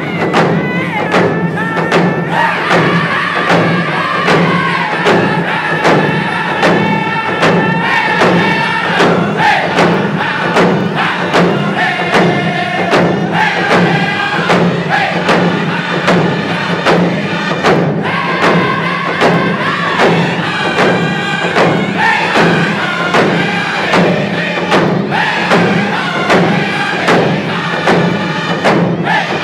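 A group of men singing in unison, loud and high-pitched, while beating hand-held hide frame drums together in a steady beat of about two strikes a second.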